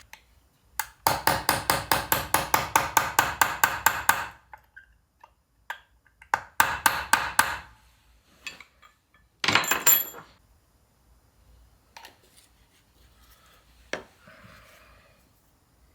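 Quick runs of light hammer taps on steel, about five a second, bending the tabs of a locking washer over a nut on a Land Rover Series gearbox. There is a long run, then a shorter one, then a single ringing metal clank about halfway through and a few scattered knocks.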